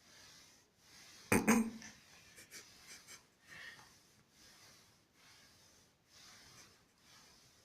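Steady rhythmic breathing close to the microphone, a soft hiss rising and falling under a second apart. About a second in there is one sharp knock with a dull thud, followed by a few light clicks.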